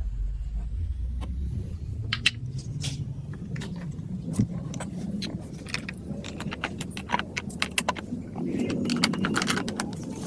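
Marbles rolling down a plastic building-block marble run: a steady rolling rumble with many sharp clicks and clacks as they hit the track pieces, the clicks coming thicker and the rumble louder in the last few seconds.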